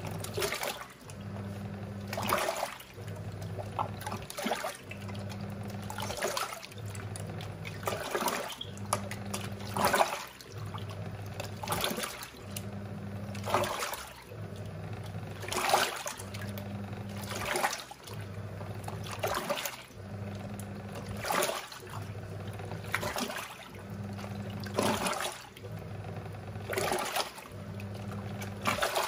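Giantex EP23113GB top-loading washing machine in its wash cycle: the motor hums in spells of about a second as the wash plate turns back and forth, with water sloshing in the drum every couple of seconds.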